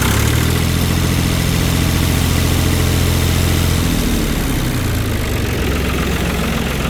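Long 350 tractor's diesel engine idling steadily, its pitch wavering and dropping briefly about four seconds in before settling again.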